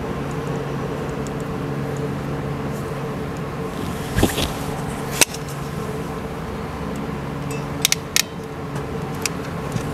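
Klein ratcheting wire crimper clicking shut on heat-shrink butt connectors, a quick cluster of sharp clicks near the end, over a steady mechanical hum; a couple of lone handling clicks come earlier.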